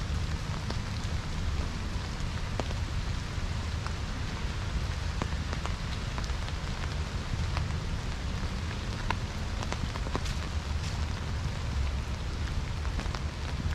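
Light rain falling, a steady hiss with scattered drops ticking at irregular moments, over a low steady rumble.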